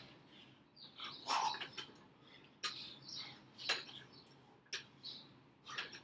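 A man's sharp, hissing exhalations, about one a second, with each rep of single-arm kettlebell snatches. Small birds chirp in the background.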